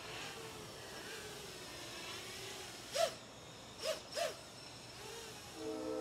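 Distant 7-inch FPV quadcopter hovering on HQProp 7x3.5x3 V1S three-blade propellers: a faint, steady hum whose pitch wavers slightly as the motors hold position. Three short, sharp sounds cut in, one about three seconds in and a quick pair about a second later, louder than the drone.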